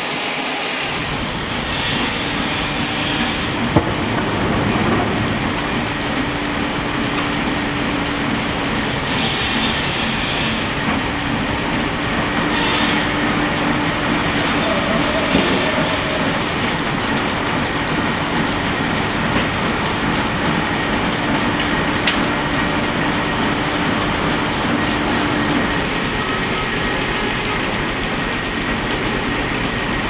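Steam-powered circular sawmill running and sawing a log: continuous machinery clatter under a steady hum that holds from about a second in until a few seconds before the end.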